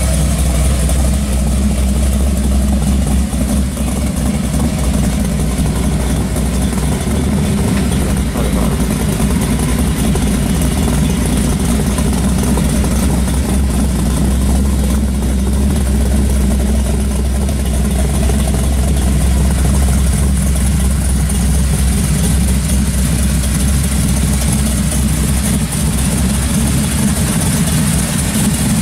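A 1970 Chevelle SS pro street car's V8 engine running steadily at idle as the car creeps along at walking pace and then sits.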